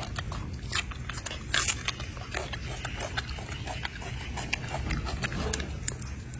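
A monkey eating and handling food: a run of small clicks and rustles, with a louder burst about a second and a half in.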